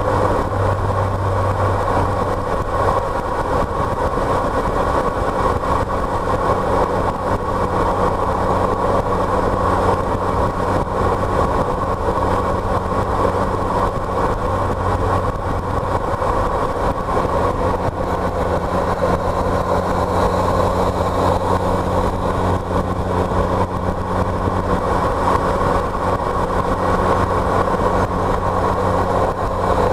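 A car driving steadily, its engine giving a constant drone that neither rises nor falls in pitch.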